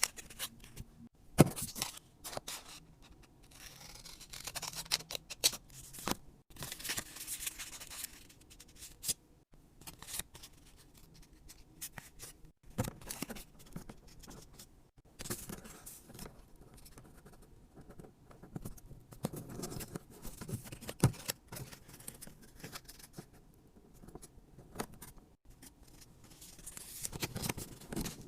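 Close hand-crafting sounds: scissors cutting and material being handled, in irregular snips and scratches with scattered sharp clicks.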